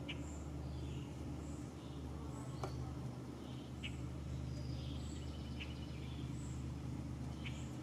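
Birds giving short, high chirps and chip calls at irregular intervals over a steady low rumble like a distant motor.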